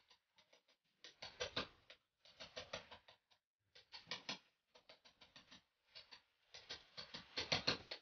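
Rapid clicking and scraping in short bursts about once a second, from hand work at a wall electrical box, loudest near the end.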